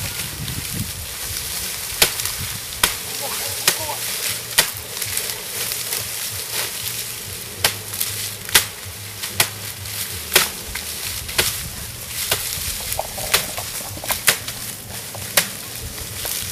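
Sharp cracks and knocks, about one a second, as sugarcane stalks are cut and stacked on a cane truck's load, over a steady hiss.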